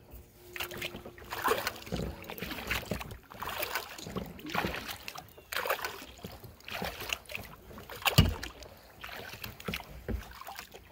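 Kayak paddle strokes: the double-bladed paddle dipping into and pulling through the water on alternate sides, splashing about once a second. A thump about eight seconds in is the loudest sound.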